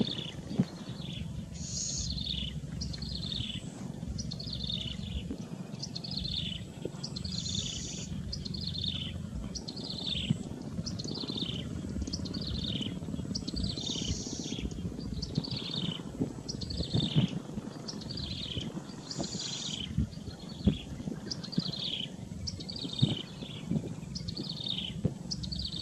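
Yellow-bellied prinia calling: a long, regular series of short, high, falling notes, about one every 0.8 seconds, over a steady low background rumble.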